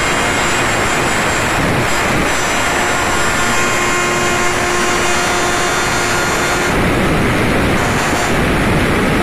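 Electric router running steadily at high speed, its bit cutting a circular hole through an aluminium panel.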